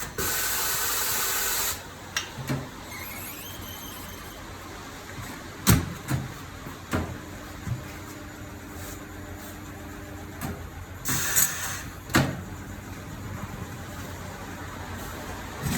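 Tire-change work on a car wheel: bursts of compressed-air hiss from pneumatic tools, with sharp metallic clanks between them.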